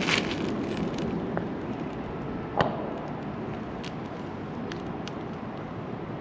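Construction site noise: a steady rumble with scattered knocks and clanks, the sharpest one about two and a half seconds in.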